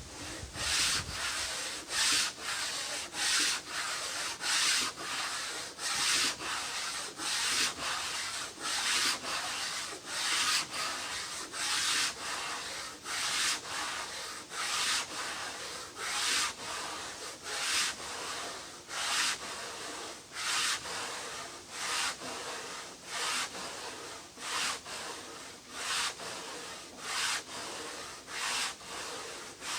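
Wood being sanded by hand, fairing the canoe's surface, in steady back-and-forth strokes a little over one a second.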